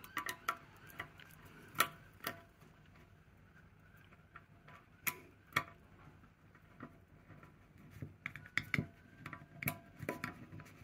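Scattered small clicks and ticks of a screwdriver working a tiny screw out of a partly dismantled Ubiquiti UniFi U6 Mesh access point's circuit-board frame. The clicks come more quickly near the end.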